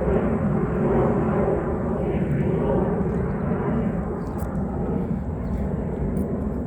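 Steady low rumble of distant engine noise, such as a passing jet or road traffic, easing off slightly in the second half.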